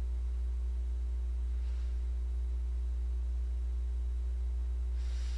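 Steady low electrical hum with a few faint steady higher tones above it, the background of the microphone setup. There is a faint soft breath or rustle about two seconds in and another near the end.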